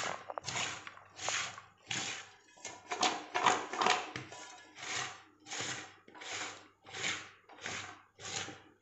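Handful after handful of salted raw jackfruit strips being tossed in a metal bowl: a rhythmic rustling swish about three times every two seconds.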